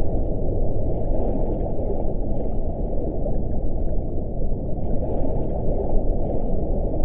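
Underwater whale recording: a dense, muffled low rumble with no single call standing out.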